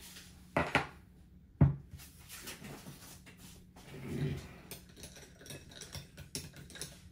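A drinking glass set down on a desk with a couple of knocks, the sharpest about a second and a half in, then a metal straw stirring a latte in the glass with a run of light clinks.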